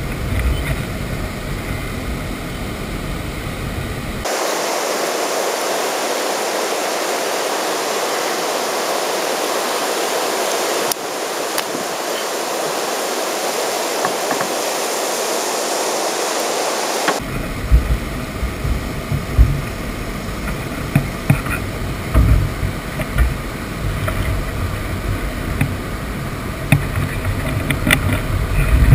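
Wind rumbling on the microphone and water moving around a kayak. For about thirteen seconds in the middle this gives way to a steady, thinner hiss, then the rumble returns with scattered knocks and small splashes as a landed pike is handled at the kayak's side.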